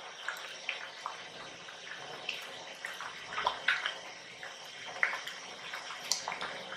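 A large pot of hot afang soup being stirred with a long spoon: thick liquid sloshing, with irregular small pops and splashes.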